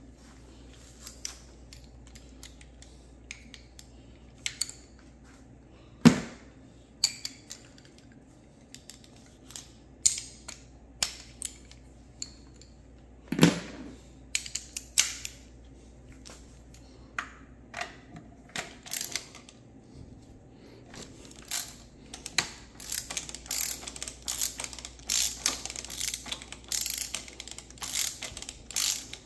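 Scattered metallic clicks and two sharp knocks, the first the loudest. Over the last third comes a fast run of ratchet wrench clicks as a bolt on the Ford Fiesta's engine mount is turned out.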